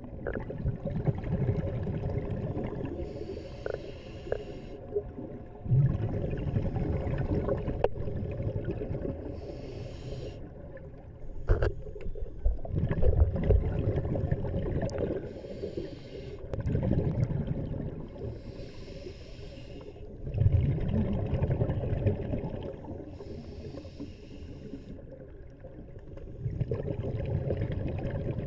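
Scuba diver breathing through a regulator underwater: a short hiss on each inhale, then a longer low rumble of exhaled bubbles, repeating about every five seconds.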